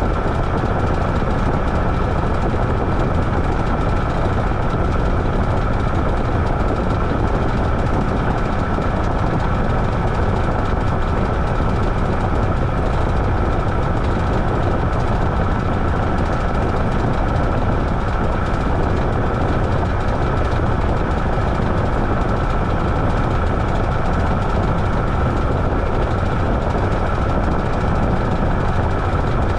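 Washing machine running steadily, a constant rumble with a steady high motor whine.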